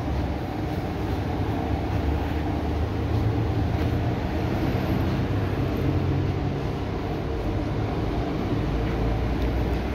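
Steady, loud mechanical rumble with a few held low tones, like a motor or machine running nearby.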